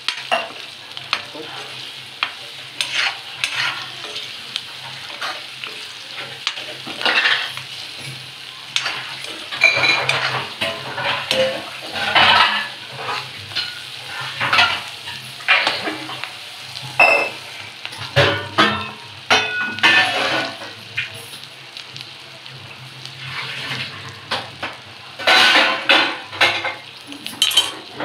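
A spatula scraping and stirring whole green chillies and spice masala around a metal kadhai, with the sizzle of the chillies frying in oil. The scraping strokes come irregularly, with a quicker run of strokes near the end.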